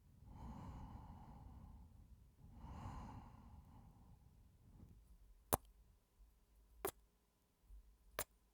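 A man sighing twice, long and breathy, then three short, sharp kissing smacks over the last few seconds, a little over a second apart.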